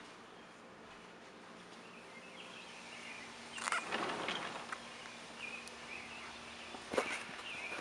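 Outdoor ambience with small birds chirping on and off, a brief scuffing rustle a little before halfway, and a sharp click near the end.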